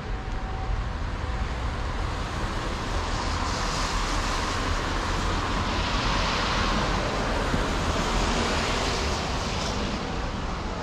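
Street traffic noise, a vehicle's tyres hissing on the wet road, swelling from about four seconds in and easing off near the end.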